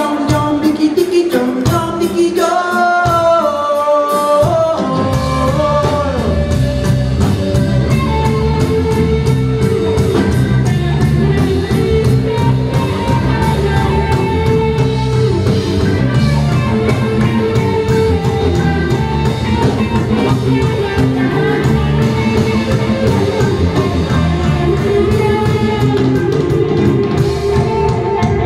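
Live rock band playing with singing, with electric guitar. The first few seconds are sparse, then the full band with drums and bass comes in about five seconds in and plays on steadily.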